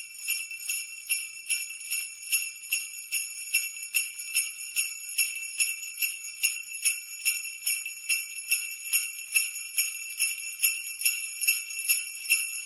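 Jingle bells shaken in a steady, even rhythm, about three shakes a second, with a bright, high ringing.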